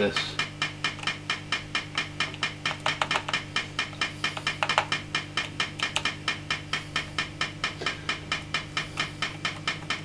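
Fender Vibro King valve amp ticking steadily through its speaker, about five ticks a second, over a steady low hum: the well-known Fender vibrato tick, which moving the leads around has not cured. A few slightly louder clicks stand out in the middle.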